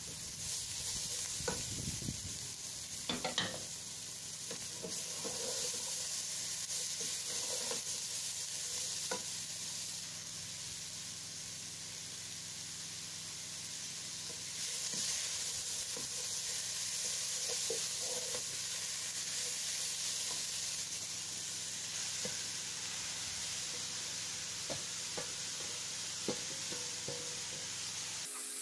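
Shredded vegetables sizzling steadily as they fry in a granite-coated pan, with a wooden spatula scraping and knocking against the pan as they are stirred.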